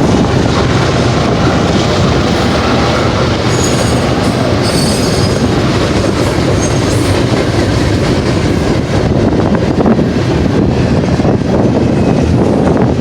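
Double-stack container train rolling past at speed, its steel wheels clattering over the rails, with a brief high wheel squeal about four seconds in. Strong wind buffets the microphone.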